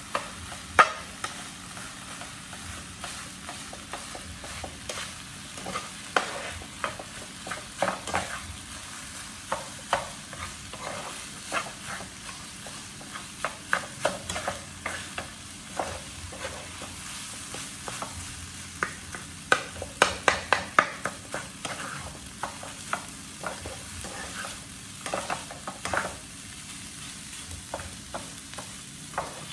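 Fried rice sizzling in a frying pan while a spatula scrapes and taps against the pan, stirring and turning it, in irregular strokes; a quick run of scrapes comes about twenty seconds in.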